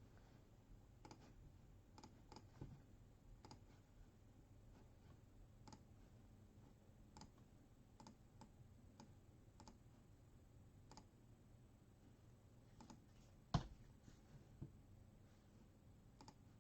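Near silence with faint, irregular clicks, about a dozen of them, and one sharper click about three-quarters of the way through.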